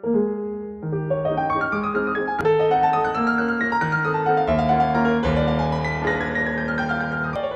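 Background piano music: melody notes over held chords, played at an even pace.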